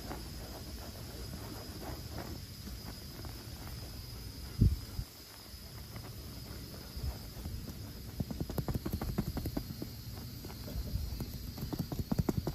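A cotton ball pressed and rubbed with a gloved fingertip on a marine vinyl boat cushion: soft scuffing, turning into a quick run of rubbing strokes in the last four seconds, with one dull thump about halfway through. A steady high insect chirring sits underneath.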